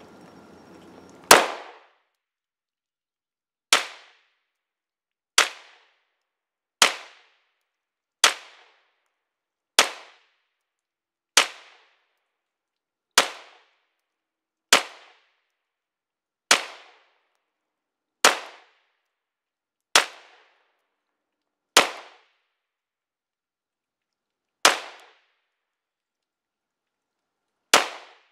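A Polymer 80 9mm pistol, a Glock 19-pattern build with a new Brownells slide, fires fifteen slow, aimed single shots, about one and a half to three seconds apart. Every round fires and cycles with no malfunction.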